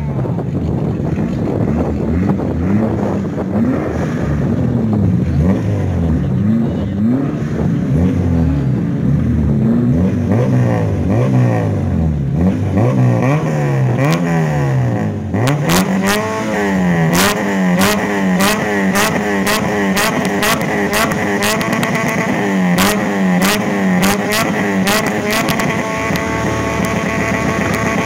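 Supercharged Honda Civic Si four-cylinder being revved up and down repeatedly while staged for a drag launch. About halfway through it is held steady at high revs, bouncing on the limiter with regular sharp pops.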